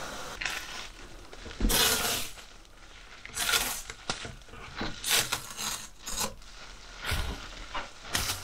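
A series of short, irregularly spaced rustling scrapes as metal swarf and iron filings are cleared from a freshly cut hole in a van's steel roof.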